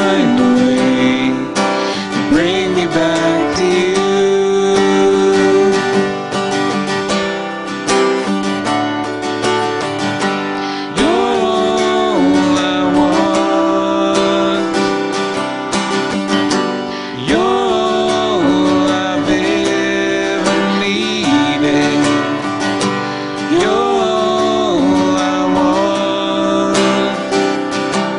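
A man and a woman singing a Christian worship song together, accompanied by a strummed acoustic guitar.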